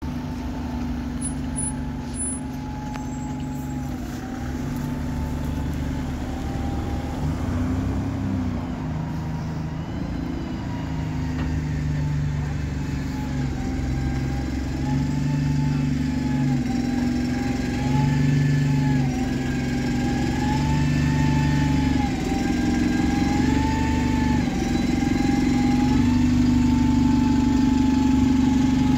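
Single-deck bus engine idling steadily, with a steady low hum and a fainter higher whine that wavers in pitch. It grows gradually louder as the microphone comes up close alongside the bus.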